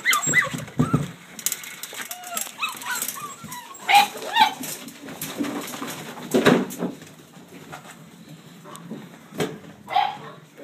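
Several excited puppies whining and yipping in short cries that bend up and down, with sharper yelps about four seconds in and again near the end, and a few knocks in between.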